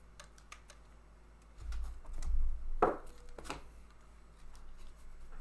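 Trading cards and packs being handled on a tabletop: a few light clicks, then a dull low rumble with two sharp clicks about three seconds in, followed by soft rustling.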